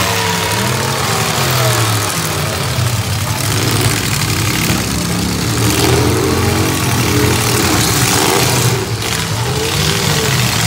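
Full-size demolition derby cars' engines revving and idling, several at once, their pitch rising and falling as the cars maneuver.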